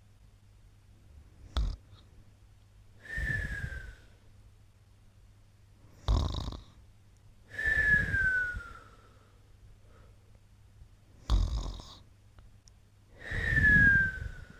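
Snoring in a slow, even rhythm, three times over: each cycle is a short sharp snort, then a breath about a second long with a high whistle that slides downward in pitch.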